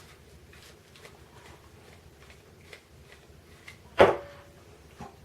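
Light clicks and taps of metal parts being handled as a VAZ 'classic' mechanical fuel pump is taken apart, with one sharp metallic clack about four seconds in that rings briefly.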